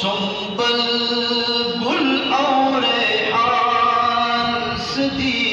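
A man singing a Pashto naat unaccompanied, drawing out long held notes, with a slide up in pitch about two seconds in.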